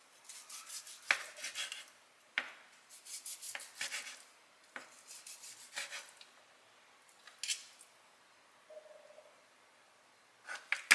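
Chef's knife sawing through cooked steak on a plastic cutting board: several runs of quick back-and-forth strokes, with the blade knocking sharply on the board as a cut goes through.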